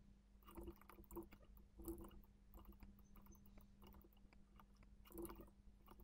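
Faint, scattered clicks of a computer mouse and keyboard, over a low steady hum.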